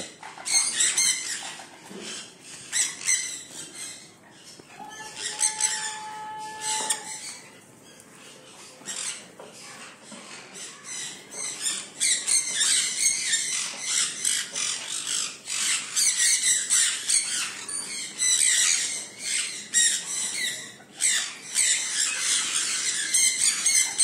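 A flock of sun conures chattering and squawking as they feed, many short high calls overlapping, growing busier about halfway through. A steady held tone sounds for about two seconds around five seconds in.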